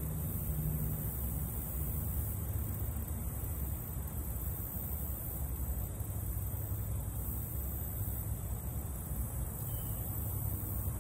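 Steady outdoor background noise: a low rumble with a faint high hiss, unchanging throughout.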